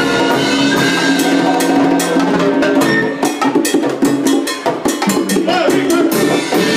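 Live salsa band playing, with drum kit and percussion keeping a steady beat under held notes from the melody instruments for the first couple of seconds.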